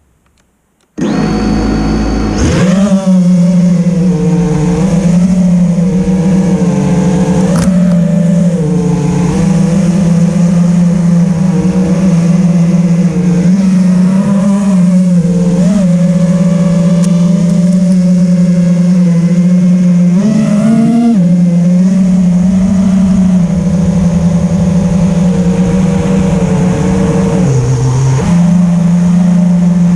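Eachine Wizard X220 racing quadcopter's brushless motors running in flight: a loud, steady hum whose pitch rises and falls with the throttle. It starts suddenly about a second in.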